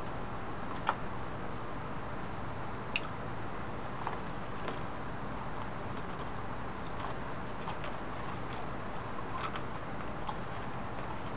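Steady hiss with a scattered handful of sharp taps and clicks, the loudest about a second in and about three seconds in.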